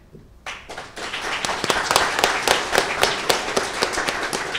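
Audience applauding: scattered claps start about half a second in and quickly build into steady applause from many people.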